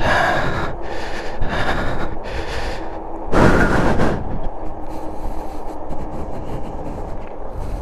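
Wind rushing over the microphone of a moving e-bike, with tyre rumble on the asphalt. The wind comes in three louder gusts: one at the start, one about a second and a half in, and the strongest at about three and a half seconds.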